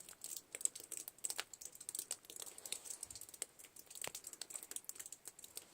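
Faint, irregular crackling and ticking from snow-laden trees in heavy wet snow, with a sharper crack about four seconds in. It is taken for tree limbs cracking under the weight of the wet snow.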